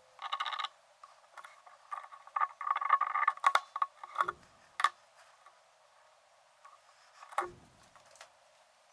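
Small handling sounds of steel knife-making tools on a cutting mat: short scrapes and rustles, sharp clicks, and two dull knocks, a little after four seconds in and about seven and a half seconds in, as tools are set down.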